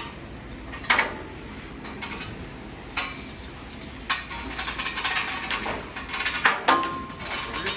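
Steel lifting chain clinking and rattling as it is handled and looped over forklift forks, with several sharper metal clanks, the first about a second in.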